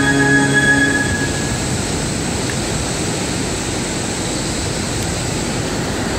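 Music with held notes fades out about a second in, leaving a steady rush of ocean surf breaking over rocks.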